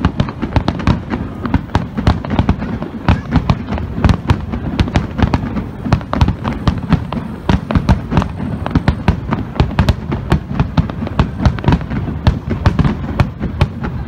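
Fireworks finale barrage: aerial shells bursting in rapid succession, many sharp bangs and crackles a second over a continuous low rumble.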